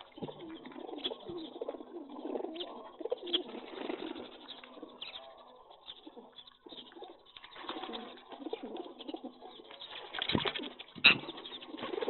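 Pigeons cooing continuously, with scattered small clicks and a sharp knock near the end.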